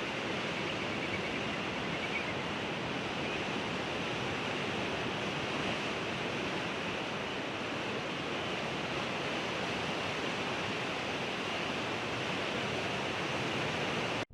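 Sea surf: a steady, even wash of waves with no distinct breakers.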